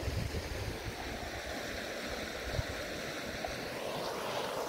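Wind buffeting the microphone: an uneven low rumble under a steady rushing hiss, which swells a little about four seconds in.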